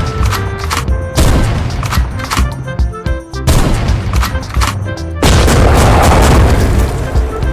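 Music with loud booming blasts laid over it, three of them, the last one lasting about two seconds.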